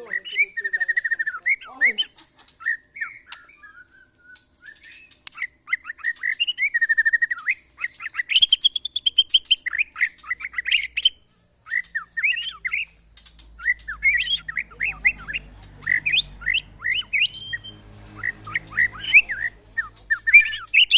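White-rumped shamas (murai batu) singing in fast, varied phrases of chirps, whistles and trills, broken by short pauses.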